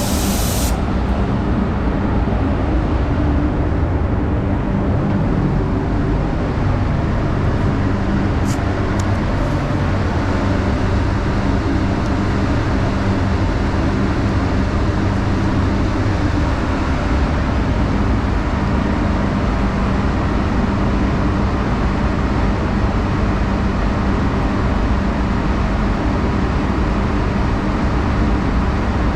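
Paint spray gun hiss cutting off about a second in, leaving a loud steady machine hum with a constant low drone.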